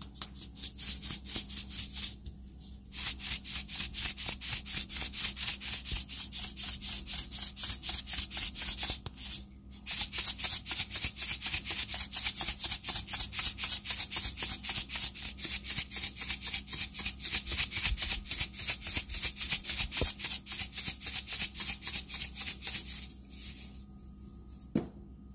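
Salt grinder being twisted to season raw chicken: quick, even rasping crunches, about four or five a second, in long runs with short pauses about two and nine seconds in, stopping a couple of seconds before the end.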